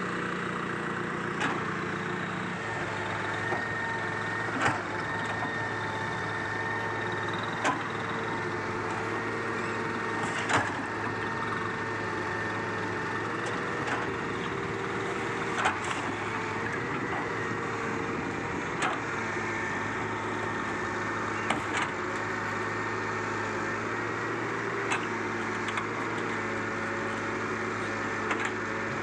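Diesel engines of a Hitachi excavator and a dump truck running steadily while the truck's bed tips its load of soil, with sharp knocks and cracks every few seconds.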